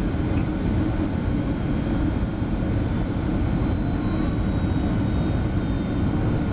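Steady cabin noise of a Boeing 757-200 jet airliner: a constant low rumble of engines and airflow, with faint steady whines above it.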